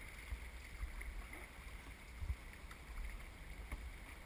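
Steady rush of river water around a canoe, with low wind rumble on the microphone and a few faint knocks.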